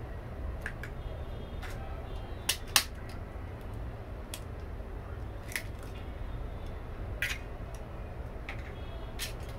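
Kitchen knife blade tapping eggshells to crack eggs over a metal bowl: scattered sharp clicks, the loudest a little under three seconds in, over a steady low hum.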